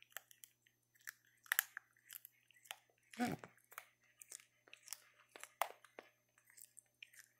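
Faint, irregular wet clicks and smacks of macaque mouths close by, like chewing, with one short low voiced sound about three seconds in.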